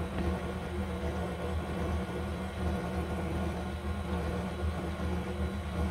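KitchenAid Ultra Power Plus stand mixer running at a low speed, its motor giving a steady hum as the flat beater works flour and egg into a dough.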